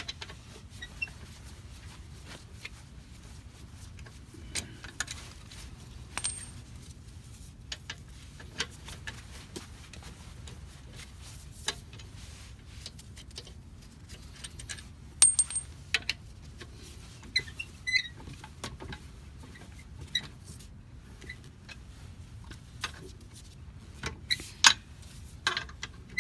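Scattered metallic clicks and clinks of steel wheel lug bolts being unscrewed by hand and handled, a few ringing briefly, over a steady low background rumble. The loudest clinks come about halfway through and again near the end.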